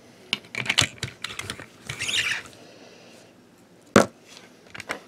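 Scattered plastic clicks and taps of a toy train engine and tender being handled on a tabletop, with a brief scrape about two seconds in and one sharper knock about four seconds in.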